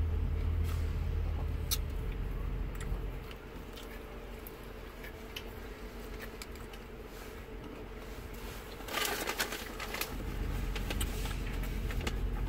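Chewing and small mouth clicks from people eating sandwiches inside a car, over a low hum that fades about three seconds in and returns near the end. A brief rustle about nine seconds in.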